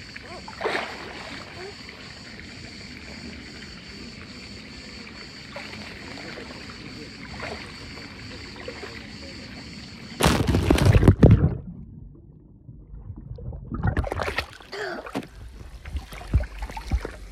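Swimming-pool water running and lapping steadily, with short faint voice sounds. About ten seconds in, loud splashing and knocking as the camera is handled at the water's surface. The sound goes dull for a couple of seconds as it dips under, then choppy splashing.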